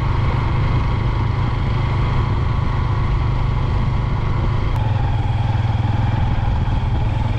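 Motorcycle engine running steadily while riding, its note shifting slightly about five seconds in.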